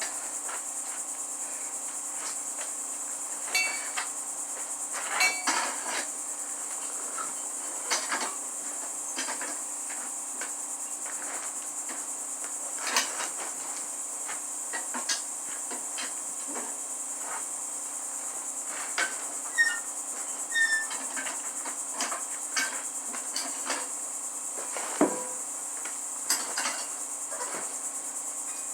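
Steady high-pitched chirring of crickets, with scattered metallic clinks and knocks of tools on metal, a few ringing briefly.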